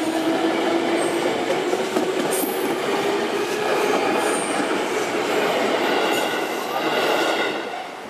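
JR 205-series electric commuter train running past close by. A low tone rises slowly in pitch over the first few seconds, and the sound falls away near the end as the last car clears.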